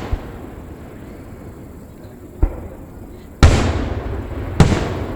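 Aerial fireworks shells bursting: a smaller bang about halfway through, then two loud booms about a second apart near the end, each trailing off in a rumble.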